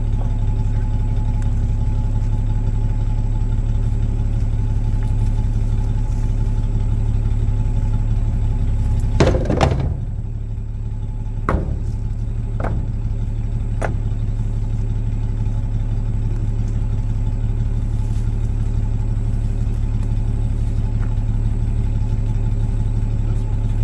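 Old Chevy pickup's engine idling steadily. About nine seconds in there is a brief louder clatter, followed by three sharp knocks over the next few seconds.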